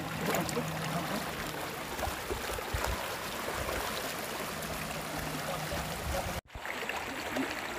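Shallow stream running over stones, a steady rushing. The sound breaks off abruptly about six and a half seconds in, at a cut.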